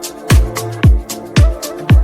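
Upbeat electronic dance background music with a steady kick drum on every beat, about two beats a second, with hi-hat strikes and held bass notes between.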